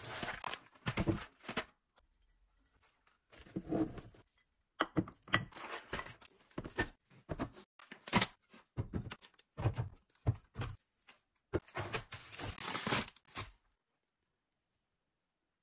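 Groceries being put away on pantry shelves: boxes, jars and cans set down and slid into place, with irregular knocks, scrapes and packaging rustles that stop about two seconds before the end.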